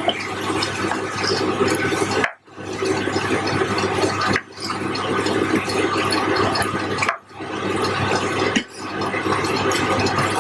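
Raw chicken pieces sizzling in a hot pan of fried onions and spices as they are stirred in, a steady sizzle broken by a few brief drop-outs.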